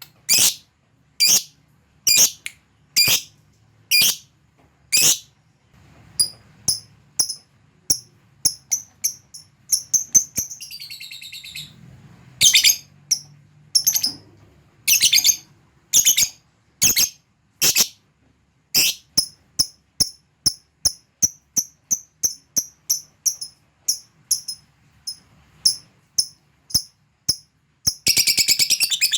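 Lovebird calling: sharp high chirps about one a second, a short wavering call partway through, then a quicker run of ticking calls, and near the end a long, rapid chattering trill (the 'ngekek') begins.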